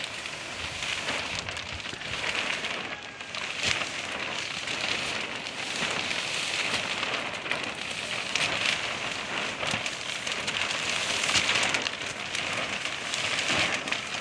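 A large sheet of UV greenhouse plastic film crackling and rustling continuously as it is unrolled and pulled over the greenhouse frame, with dense little crinkles and snaps.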